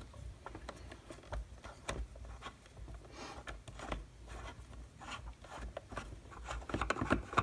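Screwdriver turning a screw out of the plastic case of a Hakko FX-951 soldering station: faint scattered clicks and scraping, growing busier near the end.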